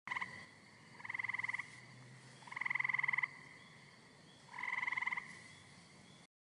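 A tree frog calling: a brief call, then three fast pulsed, rattling croaks, each well under a second long, with pauses of about a second between them.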